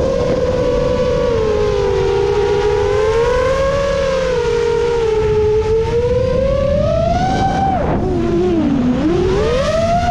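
A 7-inch FPV quadcopter's Emax Eco II 2806.5 brushless motors and HQ 7x3.5x3 three-blade props whine in flight, the pitch rising and falling with the throttle. About eight seconds in, the pitch drops sharply as the throttle is cut, then climbs back up.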